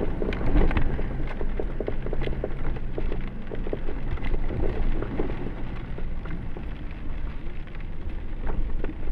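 Jeep engine running steadily at low revs as it crawls over a rutted, muddy track, with many short knocks and taps scattered through it.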